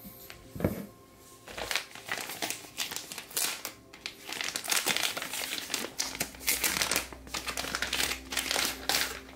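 A single knock about half a second in, then plastic packaging crinkling and rustling in irregular handfuls as it is handled and unwrapped.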